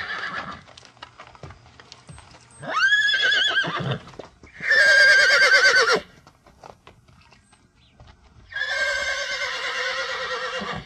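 Horses neighing: several separate whinnies with quiet gaps between them. The first rises sharply and then quavers, the next quavers strongly throughout, and a longer, steadier call comes near the end.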